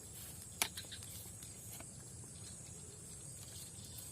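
Quiet outdoor background with a steady high hum of insects, broken by one sharp click about half a second in.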